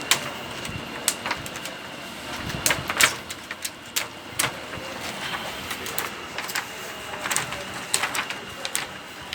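Irregular sharp clicks and taps, one to three a second, over a faint steady high-pitched tone.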